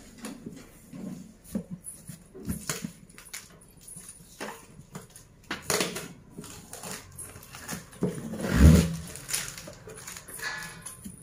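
Hands handling a cardboard box: scattered taps, scrapes and packing tape being picked at, with one heavy thump about three quarters of the way through and a short high whine near the end.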